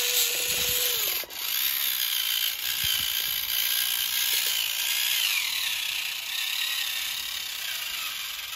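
Battery-powered model New Holland 3630 tractor's small electric drive motors and gears whining at a high pitch as it climbs a loose soil pile, the pitch wavering up and down with the load, with a brief dip just over a second in.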